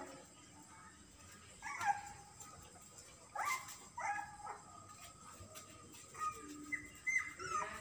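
Young puppies whimpering and yelping: short, high-pitched calls that drop in pitch, a few spaced apart and then a quicker run of them near the end.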